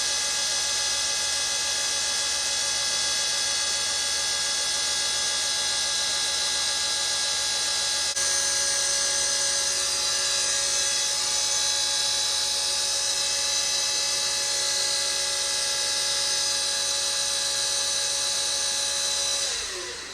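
Star well pump's electric motor running with a steady whine and hiss, then switching off near the end, its pitch falling as it spins down.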